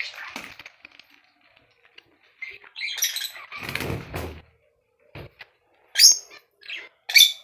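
Budgerigar bathing in a shallow water bowl, its wings flapping and splashing in the water, with a longer flutter about halfway through. Two short, sharp budgie chirps come near the end.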